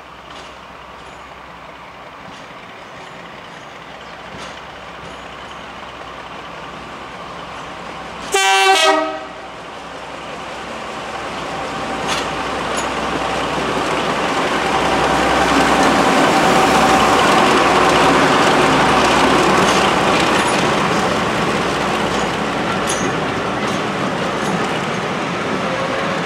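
Class 42 Warship diesel-hydraulic locomotive D821 gives one short horn blast as it approaches. Its twin Maybach diesel engines then grow steadily louder as it runs past hauling carriages, and ease off a little as it moves away.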